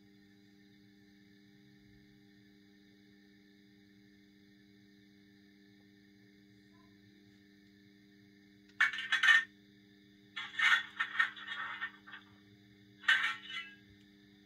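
Sound decoder of a Minitrix N-scale LNER A4 steam locomotive playing stationary steam sounds through its tiny speaker. A faint steady hum runs underneath, and from about nine seconds in come three loud bursts of rough, rasping noise.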